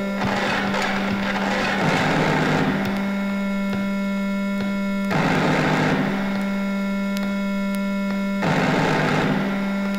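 Experimental noise music from a flexi-disc record: a steady low drone with steady higher tones, broken by surges of harsh noise that return every few seconds.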